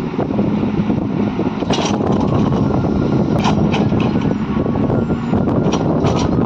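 Excavator's diesel engine running steadily under work, with a few brief sharp clanks or scrapes, about two, three and a half, and six seconds in.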